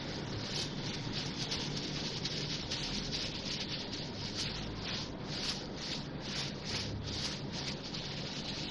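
Plastic-gloved, water-wetted hands rolling ground beef mince into kofta balls: repeated rubbing and squishing strokes of plastic against the meat, about two a second, strongest in the middle, over a faint steady low hum.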